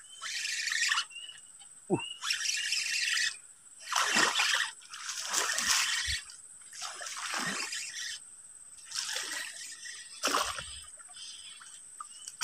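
Repeated bursts of splashing, each about a second long, from a hooked snakehead thrashing at the surface of the ditch while it is fought on light spinning tackle.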